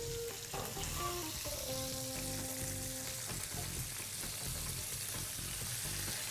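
Chicken pieces sizzling in hot oil in a frying pan, a steady even hiss, as a fork turns them in the pan.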